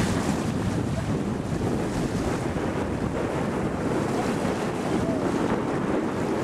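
Wind buffeting the microphone over the steady rush of water and waves.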